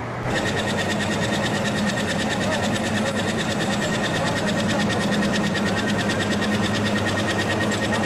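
A motor running steadily, with a fast, even rattle over a constant hum.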